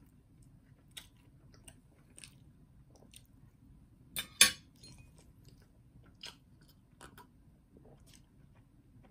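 Close-up chewing of a mouthful of sausage, with small wet mouth clicks. About four seconds in, cutlery pressed against the plate gives a sharp double clack.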